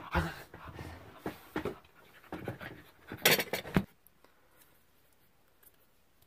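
A man making loud, ragged panting and breathy vocal noises, which stop abruptly about four seconds in. The rest is near silence with a few faint ticks.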